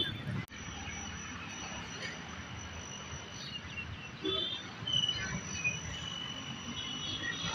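A steady, high-pitched insect trill, with a few short faint chirps over a low background rumble. The sound changes abruptly about half a second in.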